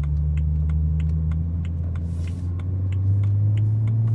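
BMW 335i's turbocharged straight-six running under way as the car is driven, a steady low hum that climbs in pitch near the end as it speeds up. Light ticking about three times a second runs underneath, and there is a brief hiss about two seconds in.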